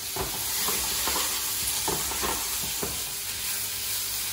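Vegetables and crispy seitan strips sizzling in a hot wok as they are stir-fried, with a spatula scraping and knocking against the pan several times over a steady hiss.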